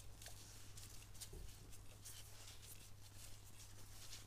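Faint, scattered light clicks and handling noise from a valve spring compressor being worked on a valve spring of a BMW M50 cylinder head, over a steady low hum.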